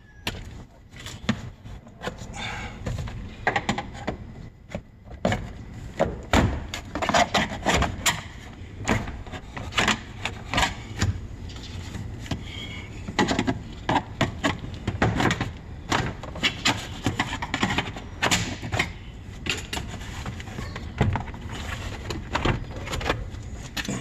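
Plastic interior trim panel of a 2005 Honda Civic's driver's door being pulled off the door: a long run of sharp clicks and knocks with plastic rubbing as the panel is worked loose.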